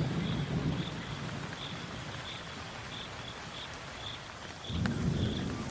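Thunder rumbling in a summer storm, fading and then swelling again about five seconds in, over a steady hiss of rain. A faint, high insect chirp repeats about every two-thirds of a second.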